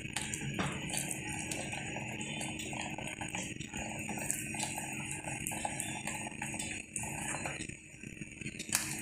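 A whisk beating thick pancake batter in a glass bowl: quick, continuous clinking and rattling of the wires against the glass, dropping away near the end as the whisk is lifted out.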